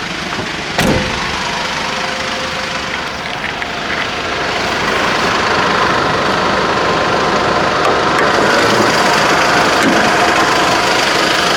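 Mercedes Sprinter 516 van's diesel engine idling, with a single sharp click about a second in; the running grows louder about five seconds in.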